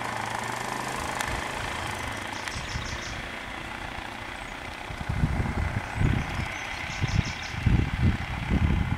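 Vehicle engine idling with a steady low hum. From about halfway through, irregular low rumbles and thumps come and go and become the loudest sound.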